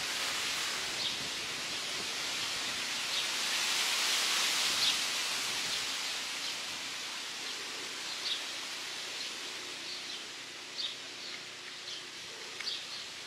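Outdoor ambience: a steady hiss that swells about four seconds in and then slowly fades, with small birds chirping here and there. The electric lawnmower is not running.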